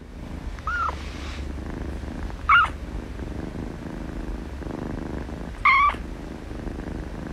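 Tabby kitten purring steadily in its sleep, a continuous low rumble. Three short high squeaks come through it, about a second in, at two and a half seconds and near six seconds.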